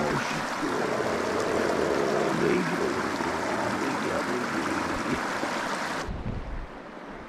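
Mountain stream water rushing and trickling among rocks. About six seconds in it cuts off abruptly, leaving a duller low rumble.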